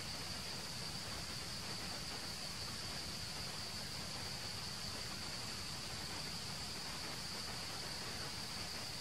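Steady, high-pitched drone of insects in the forest, unbroken and unchanging, over an even background hiss.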